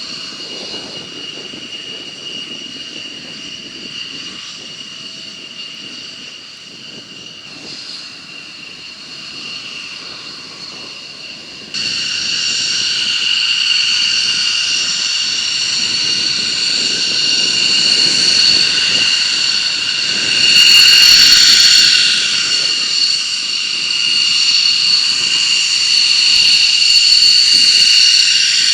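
Military jet engine running with a steady high-pitched turbine whine over a rushing roar. It gets abruptly louder about twelve seconds in and swells to its loudest for a couple of seconds around twenty seconds in.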